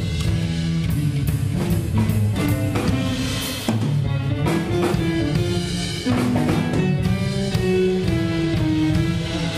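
Live band playing an instrumental passage: drum kit, electric bass and electric guitar, with held melodic notes over a moving bass line.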